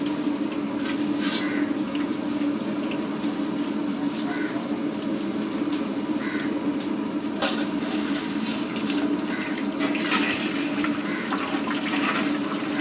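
Pakoras deep-frying in a wok of hot oil: a steady sizzling rush, with sharper crackling from about ten seconds in as the batch is lifted out of the oil with a slotted skimmer.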